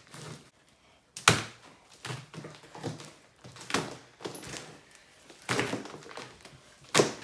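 Slime being worked by hand: four sharp snaps a second or two apart, the loudest about a second in and near the end, with soft handling noise between.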